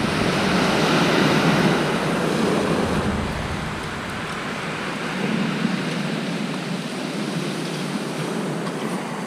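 Sea surf on a shingle beach, a steady rushing wash that swells about a second in and again around five seconds, then slowly eases.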